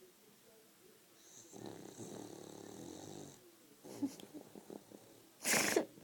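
French bulldog snoring: one snore about two seconds long with a high whistle over it, then a few faint clicks and a short, loud burst near the end.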